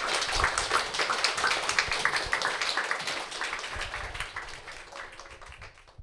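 Audience applauding, the clapping thinning and fading out toward the end.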